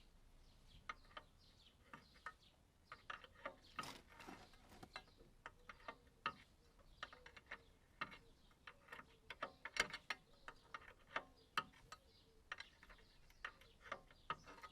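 Hand ratchet wrench clicking in irregular runs as a track-adjuster bolt is worked on a mini digger, with one louder clack about ten seconds in.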